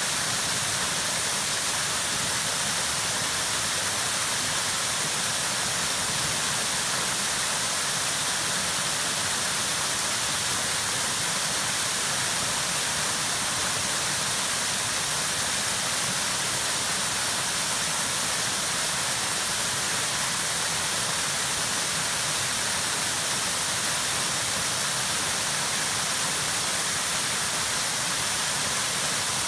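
Waterfall cascading over rock ledges into a shallow pool: a steady, unbroken rush of falling water.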